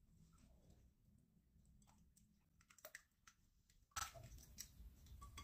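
Balloon whisk beating an egg and butter mixture in a glass bowl, heard as faint clicking and tapping of the wires against the glass. Nearly silent at first, with the clicking picking up about four seconds in.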